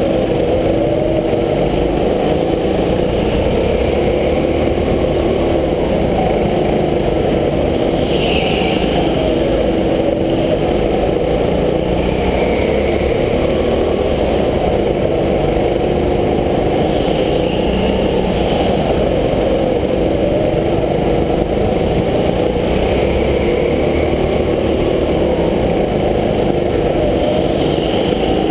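Go-kart engine running hard through a lap, its pitch rising and falling repeatedly as the kart accelerates down the straights and slows into the corners, heard from the driver's seat through a helmet camera.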